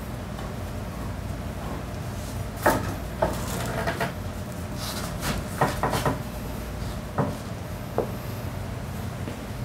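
Scattered knocks and clunks of a scooter's front wheel and its hardware being handled and pulled out of the fork, over a steady low hum.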